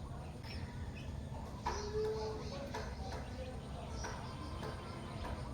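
Birds calling: scattered short chirps and one held note of about half a second, over a steady low background rumble.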